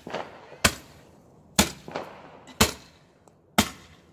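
Fireworks going off: four sharp bangs about a second apart, each with a short fading echo.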